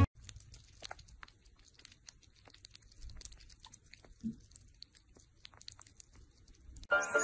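Sugar gliders licking and lapping at a cup of food, a quiet run of small wet clicks and smacks, with one louder short sound about four seconds in. Music comes in near the end.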